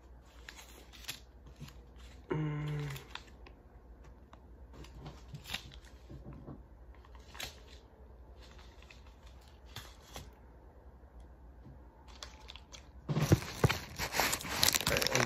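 Light rustling, crinkling and clicking of MRE packets being handled, with a short hummed voice sound about two seconds in. Near the end, loud rubbing and knocks as a hand grabs and moves the phone that is recording.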